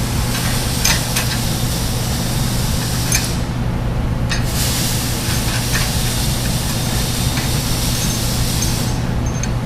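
Steady low machine hum with a high hiss over it that drops out for about a second midway, and a few light metal clicks from the brake tabs being bolted on.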